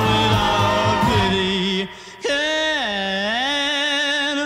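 Music: a song with a lead singer, who holds one long note that slides down and back up after a brief break about two seconds in.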